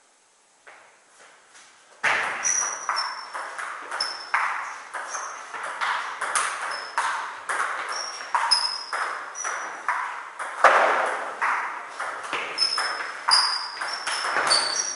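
Table tennis ball clicking off bats and bouncing on the table in a long, fast rally. A few soft taps, then the rally starts about two seconds in, with sharp clicks about two to three a second.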